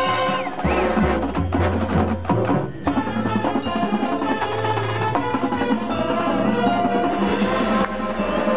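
Marching band playing its field show music, with percussion prominent over sustained bass notes.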